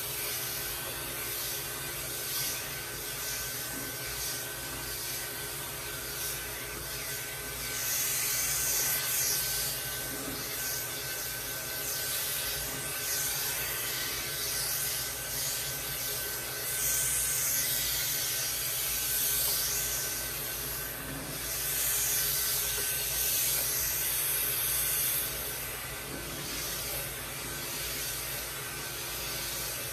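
Andis AGC two-speed pet clipper with a clipper-vacuum attachment running steadily as it shaves a Persian cat's long coat. A steady motor whine, with louder hissing stretches a few times as the blade and suction pass through the fur.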